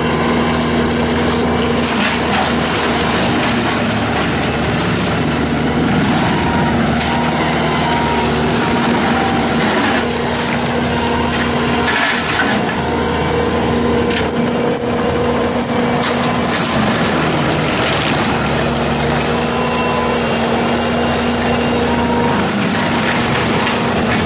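Bobcat T770 tracked skid steer's diesel engine running steadily at high speed, driving its forestry mulcher head, with a steady hum under dense rough grinding noise as the mulcher works.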